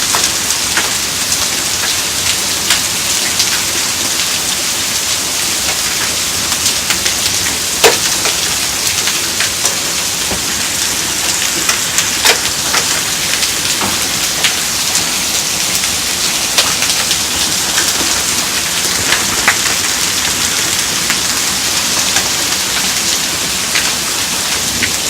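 Hail falling steadily. A dense hiss is broken by frequent sharp ticks and knocks of hailstones striking hard surfaces, the loudest strike about eight seconds in.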